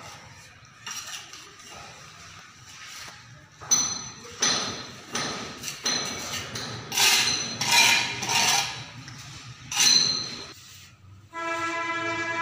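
Steel trowel scraping and knocking against wet plaster and the metal edge of an electrical box, about eight strokes, several with a brief metallic ring. Background music comes in near the end.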